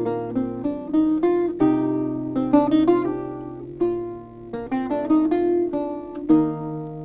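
Instrumental music played on a plucked string instrument, a guitar-like melody of quick notes, ending on a long note that dies away near the end.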